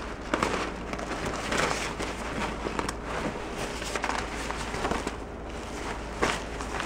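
Rustling and scraping as a leather bag is handled and turned over against clothes inside a cardboard box, with small irregular crinkles and taps.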